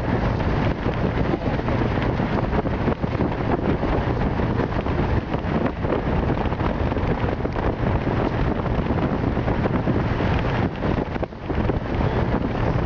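Wind buffeting the camera microphone: a loud, uneven rumbling rush, heaviest in the low end, with a brief lull about eleven seconds in.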